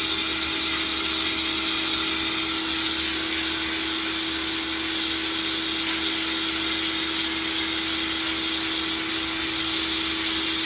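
HGTV Home 1750 PSI electric pressure washer running continuously, its motor giving a steady hum under the hiss of the water jet as it blasts a stain off the ground.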